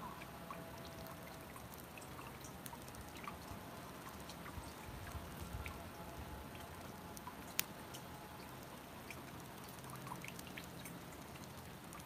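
Steady trickling and dripping water, with scattered light clicks and one sharper click a little past halfway.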